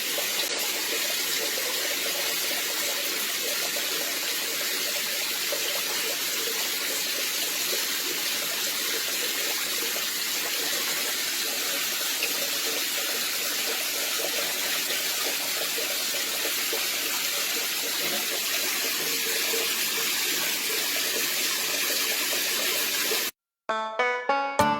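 Steady rush of running water that cuts off abruptly near the end.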